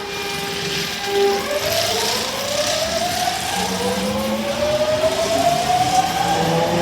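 Osaka Metro Tanimachi Line subway train pulling away from the platform. Its inverter-driven traction motors whine in several tones that rise steadily in pitch from about a second and a half in, as the train accelerates, and a low steady hum joins partway through.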